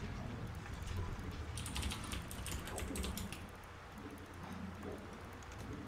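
Typing on a computer keyboard: a quick run of keystrokes from about one and a half seconds in to just past three seconds.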